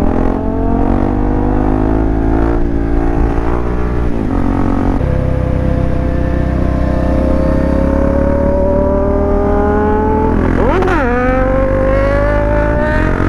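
Motorcycle engine running under steady load as the bike rides along, its pitch climbing slowly, with a low rumble of wind and road. Near the end there is a quick sharp rev spike and drop, like a throttle blip.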